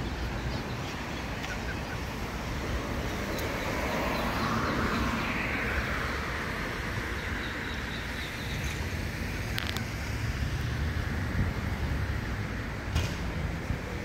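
Outdoor traffic noise: a steady low rumble with a vehicle passing, swelling and fading about four to seven seconds in, and a couple of sharp clicks later on.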